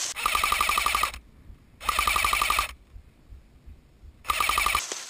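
Airsoft electric gun firing three full-auto bursts: a fast buzzing rattle of shots, the first two bursts nearly a second each and a shorter one near the end.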